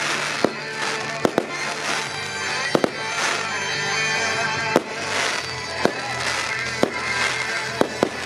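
Aerial fireworks shells bursting, with about ten sharp bangs, roughly one a second, and crackling between them. Music plays steadily underneath.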